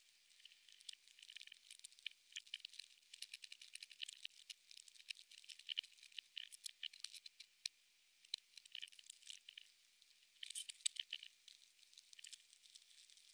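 Praying mantis chewing into a locust: its mandibles crunching through the hard exoskeleton make a faint, irregular crackle of small, sharp clicks, thicker in a couple of stretches.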